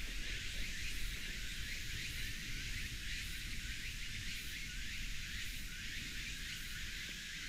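Insects chirping, a steady high haze with faint rapid repeating pulses, over a low rumble.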